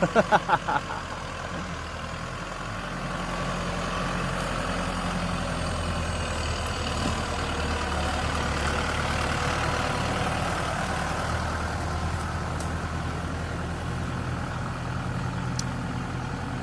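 Diesel engine of heavy machinery running steadily. It grows somewhat louder a few seconds in and eases off a little near the end.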